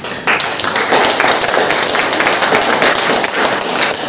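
Audience applauding: a dense, steady patter of many people clapping that starts a moment in.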